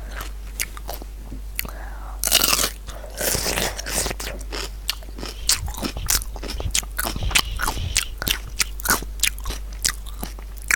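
Close-up crunching and chewing of a crisp raw cucumber: a big crunchy bite about two seconds in, then a rapid run of crisp chewing crunches.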